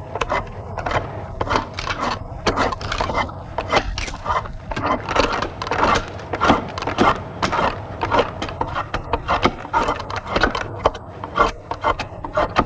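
Drawknife shaving green wood clamped in a shaving horse: repeated rasping strokes, about two or three a second, as the rung is pared round and tapered at the ends.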